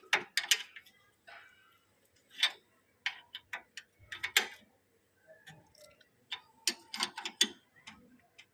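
Irregular sharp clicks and knocks from repair work on an e-rickshaw, tools and parts being handled, in three loose clusters with the loudest knock about four seconds in.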